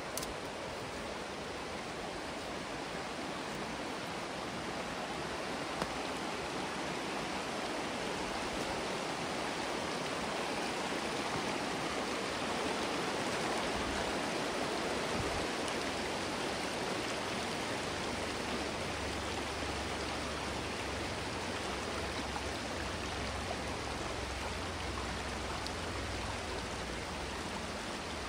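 Oak Creek's water flowing steadily, a little louder in the middle, with a low rumble joining in about two-thirds of the way through.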